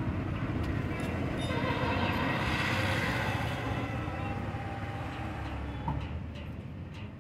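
A motor vehicle's engine running with a steady low rumble, swelling louder for about two seconds a little way in.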